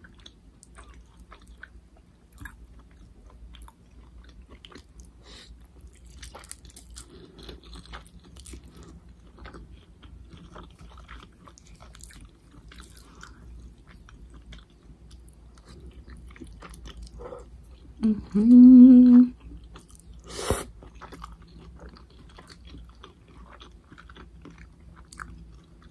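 A person eating noodles close to the microphone, with faint chewing and mouth clicks throughout. About two-thirds of the way through comes a short hummed 'mm', then a single sharp tap soon after.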